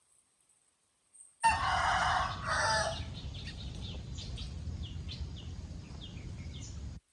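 A rooster crows loudly in two parts, then chicks peep with a string of short, high, falling chirps over a low background rumble. The sound starts suddenly about a second and a half in and cuts off abruptly just before the end.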